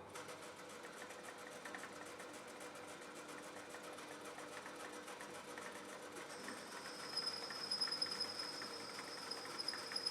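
A machine tool running and cutting metal: a steady hum with a fast, fine rattle. About six seconds in, a high steady whine joins and the cutting grows a little louder.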